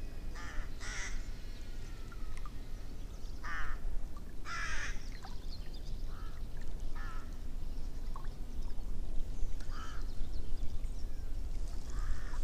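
Birds calling, short calls repeated about eight times at irregular intervals, over a steady low rumble.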